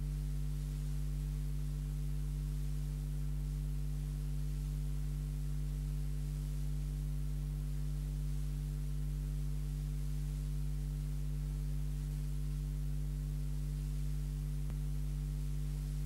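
Steady low electronic drone of several held tones, without change in pitch or loudness.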